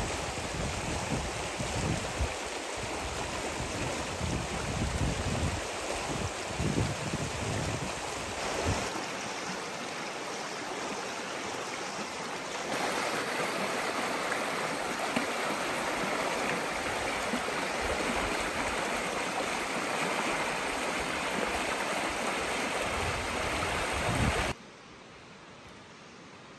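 Shallow mountain stream rushing over stones, a steady rush of water that grows brighter about halfway through. It cuts off suddenly near the end, leaving only a faint hiss.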